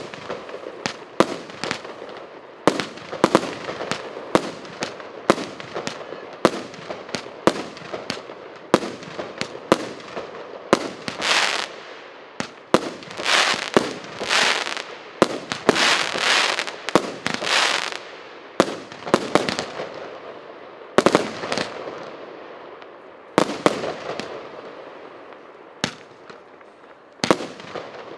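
Fireworks cake of 102 one-inch shots firing in quick succession: sharp bangs about two a second. Through the middle stretch, longer hissing, crackling bursts crowd in among them.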